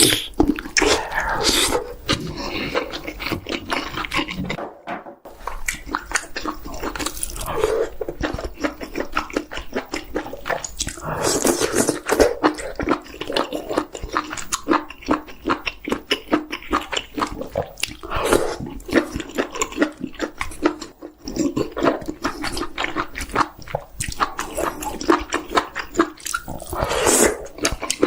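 Close-miked eating of chicken: a continuous run of bites, chewing and wet mouth smacks, with rapid irregular clicks and crunches.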